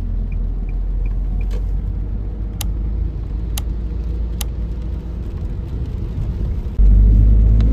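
Steady low rumble of a car on the move, heard from inside, with three sharp clicks in the middle. About seven seconds in, the rumble suddenly grows louder.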